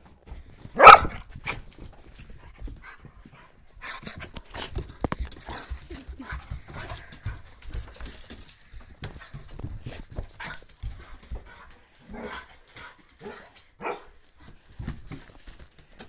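Dogs running about on a hardwood floor: one loud bark about a second in, then a long stretch of claws clicking and scrabbling on the wood, with a few quieter barks later on.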